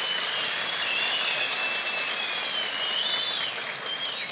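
Audience applauding, a steady clapping that eases off near the end, with a thin, wavering high tone running above it.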